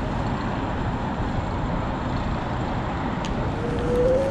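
Steady rush of wind and road noise from a moving bicycle, with a short rising tone near the end.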